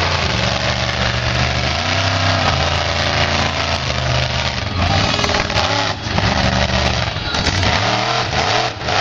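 Monster truck engine running loud, revving up and easing off several times as the truck drives and jumps a crushed car.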